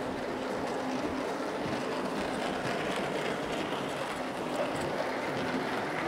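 Gauge 0 model train, an NSB Di3 diesel locomotive hauling container wagons, running past: a steady rolling rumble with a faint steady hum.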